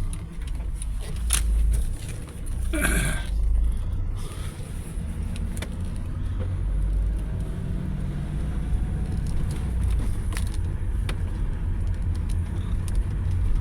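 Manual car driving, heard from inside the cabin: a steady low rumble of engine and road, with the engine note gliding up in pitch in the middle as the car accelerates. A few clicks and a short rattle come about three seconds in.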